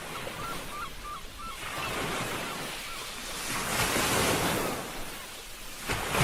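Ocean surf washing ashore in repeated swells, building to a louder breaking wave about four seconds in and again near the end, with wind. Faint short high calls sound over the surf in the first second and a half.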